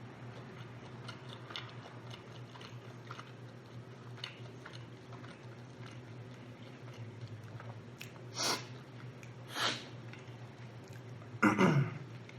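Close-up chewing of rotisserie chicken meat, with small wet mouth clicks. About eight and nine and a half seconds in come two short breath noises, then near the end a louder, short throat noise that falls in pitch.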